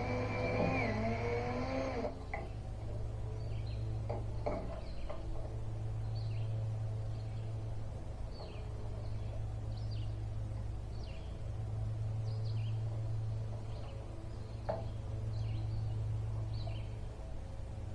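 Small birds chirping in short, scattered calls over a steady low hum that swells and fades, with a couple of light knocks. A whine that wavers up and down is heard for the first two seconds.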